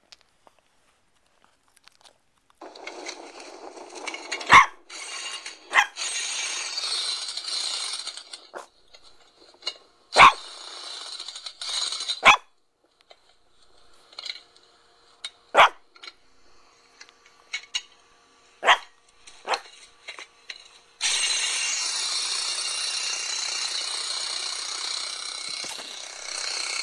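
Boston Terrier barking: about seven single, short, sharp barks spaced a second or several apart. Between and behind them are two stretches of steady hissing noise, one early and one in the last few seconds.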